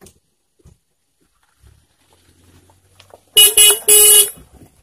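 Car horn honking three quick toots, the last a little longer, from a silver compact MPV as it pulls away.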